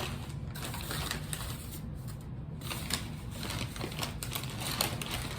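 Crinkling and rustling of paper food packaging being handled, with irregular sharp clicks.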